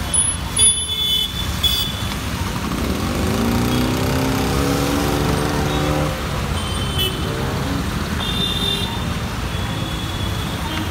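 Rain and traffic hiss on a wet road with a steady low rumble. About three seconds in, a vehicle engine revs up and holds for a few seconds. Short high-pitched horn toots come near the start and again later.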